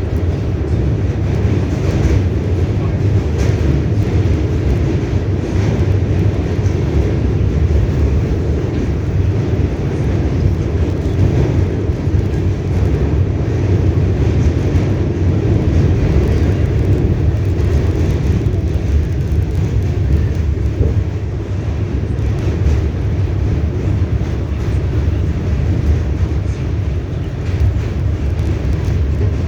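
R68A subway train running along the track, heard from aboard: a loud, steady low rumble of wheels and running gear, with faint rail clicks scattered through it.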